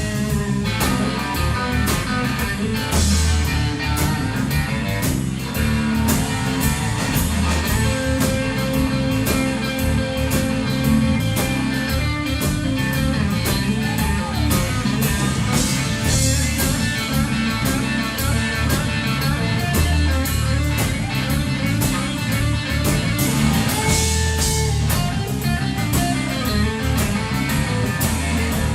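Blues-rock band playing an instrumental passage: guitar over bass and a steady drum beat.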